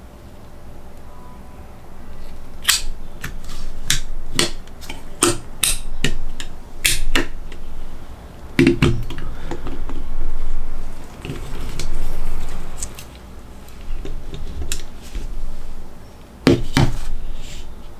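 Hard plastic parts of a metal-frame mecha action figure clicking and knocking as they are handled and fitted. A quick run of sharp clicks comes first, then a few heavier knocks and handling rustle, with another pair of clicks near the end.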